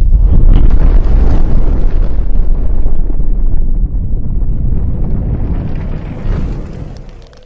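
Intro logo sound effect: a loud, deep rumbling blast like a burst of flames, which dies away near the end.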